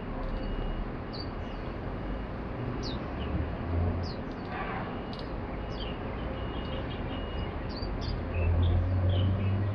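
White-eyes giving short, high chirps scattered throughout, over a steady hum of city background noise. A low rumble swells briefly about halfway through and more loudly near the end.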